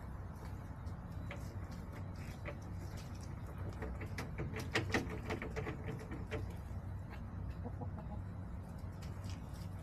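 Backyard hens clucking: scattered single clucks, then a quick run of clucks about halfway through, over a steady low hum.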